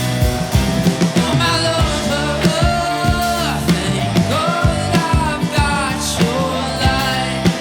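A live rock band playing: a steady drum beat and bass notes under a melody line that bends and slides in pitch.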